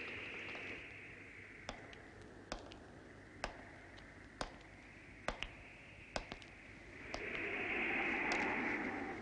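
Slow footsteps of strapped shoes on wooden stairs: sharp knocks about one a second, a few of them doubled, over a steady rushing noise that swells near the end.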